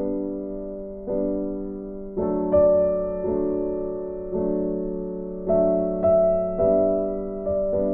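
Background music: a slow, gentle piano piece of sustained chords, with a new chord struck about once a second and each one fading before the next.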